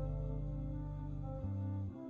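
Instrumental background music: held notes over a deep bass, with the chord changing about one and a half seconds in.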